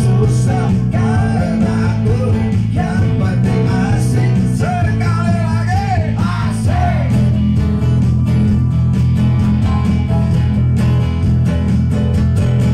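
Live band music over a PA: a singer's voice over acoustic guitar, keyboard and a steady bass and beat.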